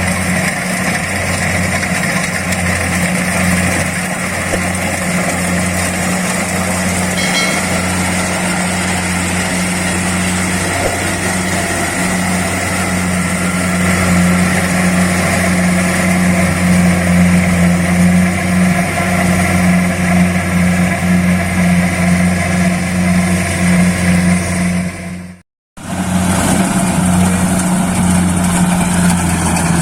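Kubota DC-70 Plus combine harvester's diesel engine running steadily under load, with a constant low hum. The sound drops out completely for a moment about 25 seconds in, then the engine picks up again.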